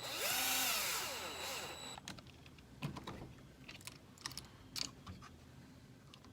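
Small electric screwdriver whirring for about two seconds, its pitch rising and falling as it drives a screw into the steering knuckle of an RC truck's front axle. A few light clicks and taps of small parts and tools follow.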